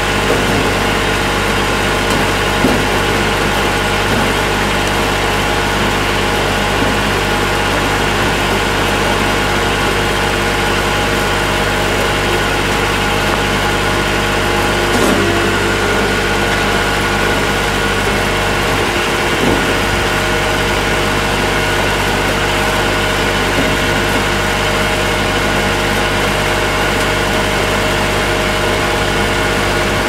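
Massey Ferguson 1020 compact tractor's diesel engine running steadily at a constant speed while hitched to a firewood processor, with a brief click about halfway through.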